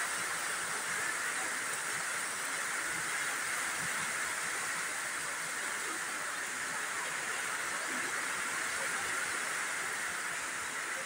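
Heavy rain falling in a steady, even hiss that holds without a break.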